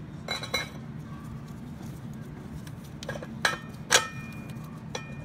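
Metal clinks as an OS Giken clutch pressure plate and disc are fitted against the flywheel. One clink comes near the start, then a cluster of sharper clinks about three to four seconds in, the loudest with a short ring, over a steady low hum.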